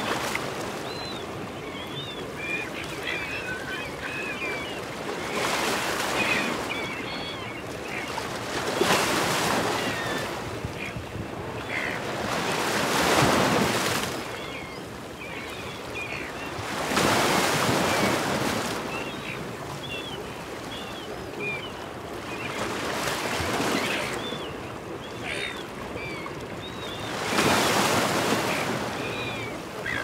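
Waves surging and washing over the rocks in swells every four to five seconds, with silver gulls giving short squawking calls on and off between them.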